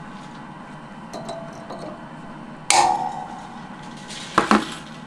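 Metal tools being handled at a lathe mandrel after a valve spring has been wound from steel wire: a few faint clicks, then a sharp metallic clink with a short ring about halfway through, and another quick double clink near the end.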